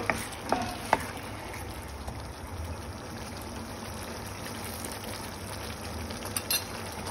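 Thick chicken manchurian sauce simmering in a non-stick pan, a steady bubbling, with a few light knocks of the spatula against the pan in the first second and again near the end.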